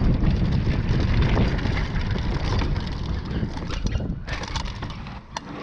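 Mountain bike descending a dirt trail at speed: wind buffeting the microphone over tyres rolling on loose dirt, with clicks and rattles from the bike. The noise dies down toward the end.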